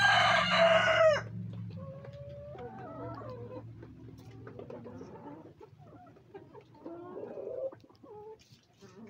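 A rooster crowing, the crow ending with a falling note about a second in, then hens clucking and calling more quietly several times.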